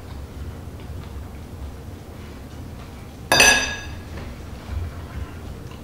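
A metal fork set down on a plate about three seconds in: a single bright clink that rings briefly.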